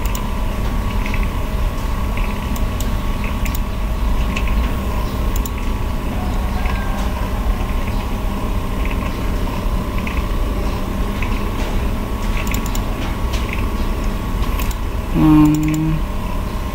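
Steady electrical hum and background noise with scattered computer-mouse clicks. About fifteen seconds in there is a brief low hum-like tone lasting under a second.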